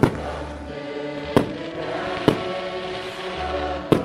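Fireworks going off in single sharp bangs, four of them a second or so apart, over music with long held notes.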